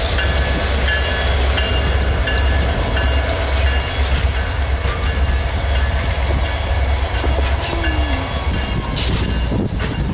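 Grand Canyon Railway passenger train rolling past with a steady low rumble, laced with short, repeated high-pitched squeals, and a few sharp clicks near the end.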